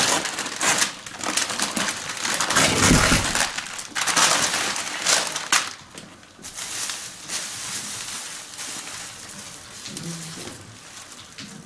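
Plastic bags and brown wrapping paper crinkling and rustling as they are handled, in irregular bursts that are louder in the first half and softer after that.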